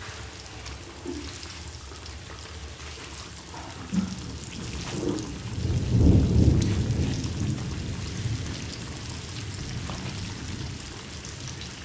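Floured chicken frying in hot oil, a steady rain-like sizzle, with soft hand-in-flour rustling. A sharp knock comes about four seconds in, then a low rumble swells and fades between about five and seven seconds, the loudest sound.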